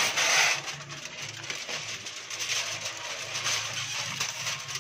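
Aluminium foil crinkling and rustling as it is unfolded and smoothed out over newspaper, loudest in the first half second.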